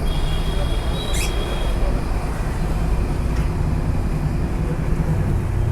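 Steady rumble of road traffic, with a short bird chirp about a second in and a thin high tone over the first two seconds.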